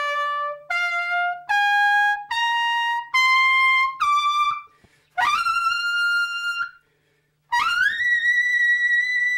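Trumpet playing the ascending harmonic series toward double high C: a run of short separate notes, each one partial higher, then two long high notes that scoop up into pitch, the last and highest, double high C, held.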